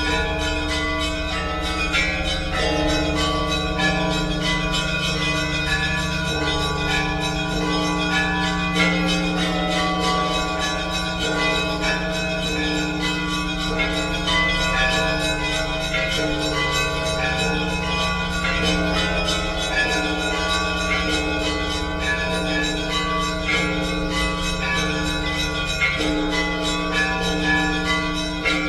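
Russian Orthodox church bells ringing together. Many quick strikes of smaller bells run over the long, steady hum of the large bells.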